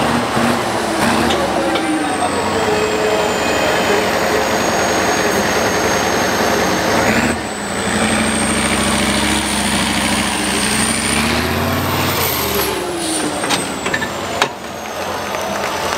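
Trial truck's engine running hard and revving up and down as it climbs and tilts on a muddy slope, with a high whistle above the engine note. The sound changes abruptly about seven seconds in, then the revs rise and fall again.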